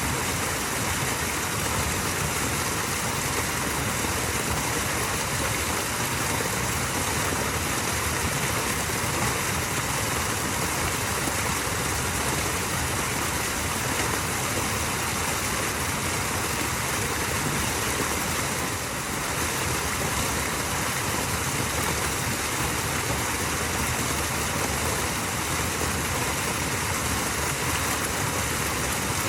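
Small waterfall: a steady, unbroken rush of running water.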